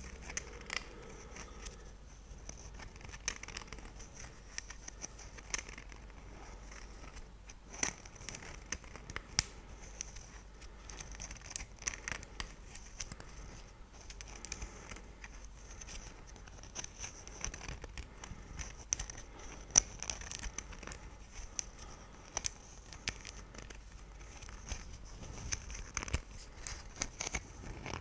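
Close-miked ASMR handling of a small figurine: fingers tapping and scratching on it, making a dense, irregular run of small sharp clicks and scratches.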